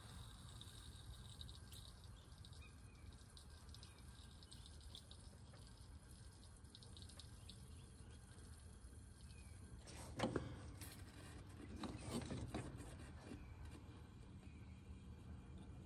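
Aerosol can of PB Blaster penetrating oil sprayed into the spark plug holes of a seized inline-six engine to soak the stuck cylinders. It is faint, with two short spray bursts near the end.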